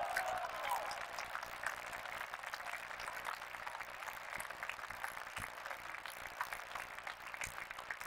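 Audience applauding the end of a squash rally: a steady patter of many hands clapping that eases off a little early on.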